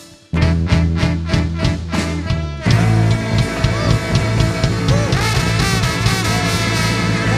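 Blues band with a brass section playing an instrumental passage: the full band comes in sharply just after the start with an even beat, and gets louder about two and a half seconds in, with drums, guitar and horns.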